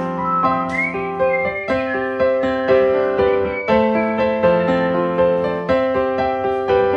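Gentle piano music, its notes changing about twice a second, with a short rising whistle about a second in.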